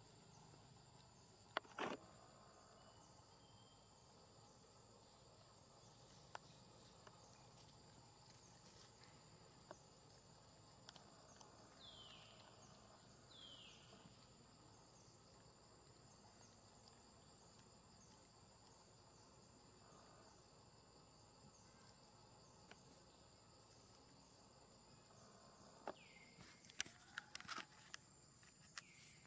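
Near silence with a faint, steady high-pitched insect drone throughout. Two short falling chirps come about twelve and thirteen and a half seconds in, and a few faint clicks come about two seconds in and in a cluster near the end.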